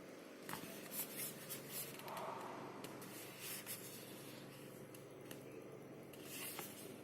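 Cosmetic products and their packaging handled by hand: soft rustling with a few light clicks and taps.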